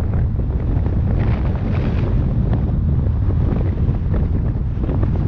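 Wind buffeting the microphone: a loud, steady low rumble with crackling.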